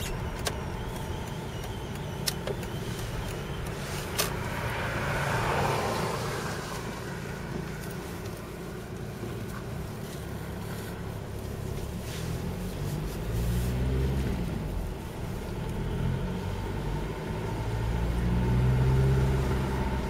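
2004 VW Passat 1.9 TDI rolling slowly on a cold engine, with a thin, steady whistling squeak over the tyre and diesel engine noise. The squeak is exhaust gas escaping through a cracked flexible exhaust section next to the catalytic converter. A few sharp clicks come early on, and the engine note rises and falls in the second half.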